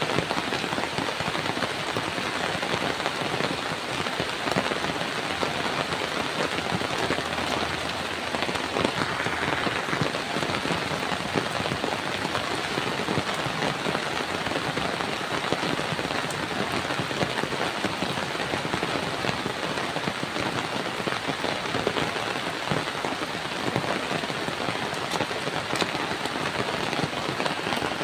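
Steady rain falling, many individual drops striking a surface in a dense, even wash of sound.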